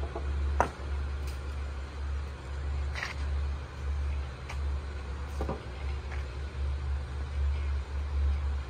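Low, uneven rumble of wind buffeting the microphone, with a few faint knocks scattered through it.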